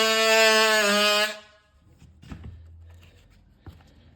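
Power cutting tool undercutting a wooden door jamb, running with a steady high-pitched buzz that dips slightly in pitch about a second in as it bites, then shuts off and winds down. A couple of light knocks follow.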